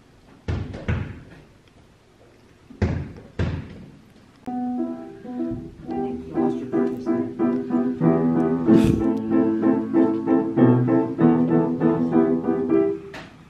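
A few dull thumps, then background music of piano-like keyboard notes that comes in about four and a half seconds in, grows louder, and stops just before the end.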